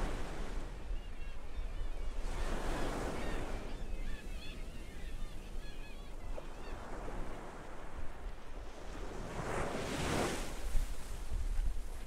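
Ocean surf breaking on a beach, with two waves surging in, about two seconds and ten seconds in, over a steady wash. Many small high calls of distant seagulls chatter in the first half, with a low wind rumble on the microphone throughout.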